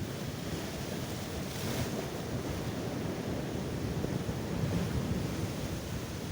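Sea waves breaking and washing on the shore, with wind rumbling on the microphone. There is a brighter surge of hiss about a second and a half in.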